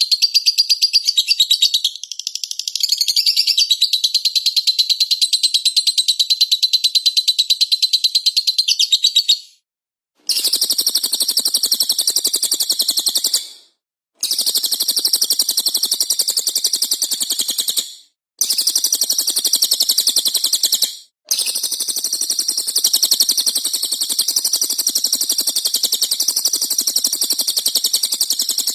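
Small songbirds chattering and chirping very fast and continuously in a high, dense stream, broken by brief silences about 10, 14, 18 and 21 seconds in.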